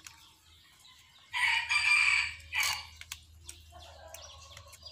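A rooster crows once, a harsh call of about a second and a half starting about a second in, followed by a fainter wavering call near the end.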